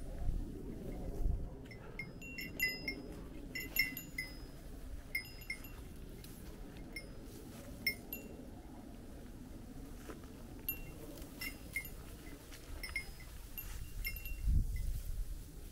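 A small metal bell tinkling in short, irregular rings, sometimes a few in quick succession, over a low rumble with a couple of dull thumps.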